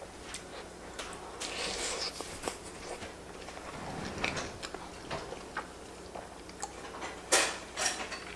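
Close-miked chewing of macaroni and cheese: wet mouth sounds and small irregular clicks as the food is bitten and chewed, with two louder, sharper sounds near the end.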